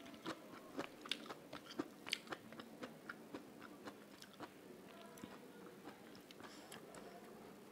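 Close-miked chewing with wet mouth clicks and a few crunches, thick for the first three seconds and sparser after.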